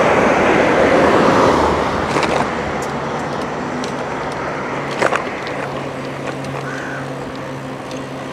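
A car going past, its tyre and engine noise loudest in the first two seconds and then fading into steady road and wind rush, with a couple of light knocks.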